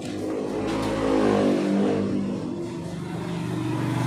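A motor vehicle's engine revving nearby: it rises in pitch and loudness to a peak about a second in, then eases off into a steadier low running hum.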